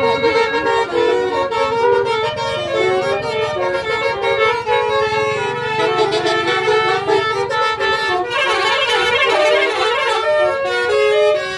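A tour bus's Basuri telolet horn, a multi-trumpet musical horn, playing a quick melody of stepping notes. About eight seconds in a shriller, denser layer joins for a couple of seconds.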